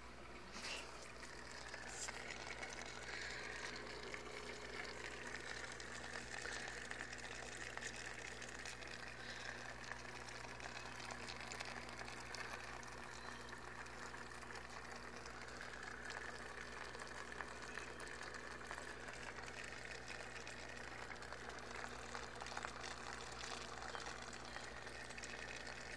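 Faint, steady trickling and bubbling of water circulating in a small 5.5-gallon aquarium, typical of its filter, over a low steady hum.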